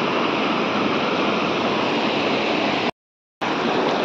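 Steady rushing of a fast river flowing over boulders. It drops out for about half a second near the end, then resumes.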